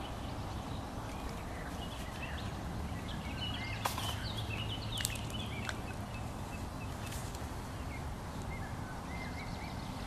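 Small birds chirping in short high calls, mostly in the middle of the stretch and again near the end, over a steady low outdoor background hiss, with a few sharp clicks.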